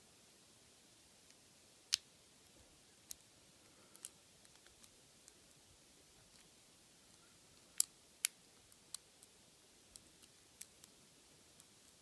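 Sparse, sharp clicks of a lock pick working the serrated pins of an American Padlock ASL40 brass five-pin padlock under tension, about a dozen at irregular intervals, with two louder ones about two seconds in and about eight seconds in.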